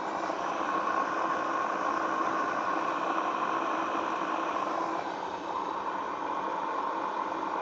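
Electric motor running steadily on an inverter drive after a start command, a steady hum with a whine near 1 kHz. The sound briefly drops about five seconds in, then steadies again.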